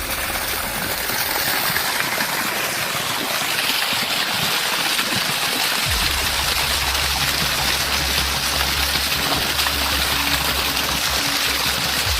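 Water gushing steadily out of a hollow tree trunk and splashing down. A low rumble joins about halfway through.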